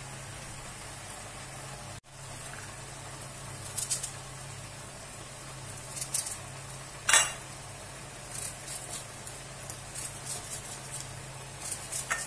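Cubed lamb liver frying over medium heat in oil and lamb tail fat: a steady sizzle with scattered crackles and spits. There is one louder crack about seven seconds in, and a run of small crackles and clicks after it.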